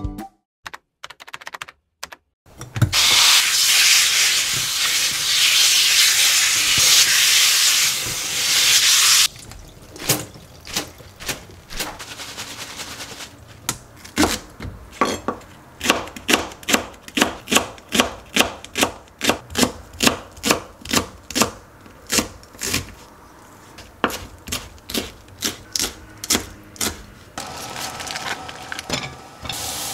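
Running water rushing loudly for several seconds. Then a kitchen knife chops green onion on a plastic cutting board in steady strokes, about two a second. Near the end comes a low hiss of oil heating in a frying pan.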